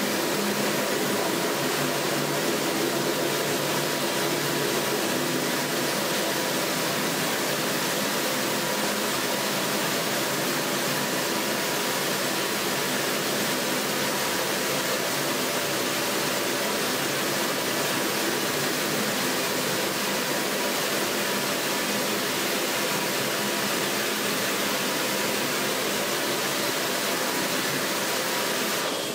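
Kärcher pressure washer running steadily, its water jet spraying a silkscreen mesh to wash out the unexposed photo emulsion and develop the stencil. It cuts off suddenly at the very end.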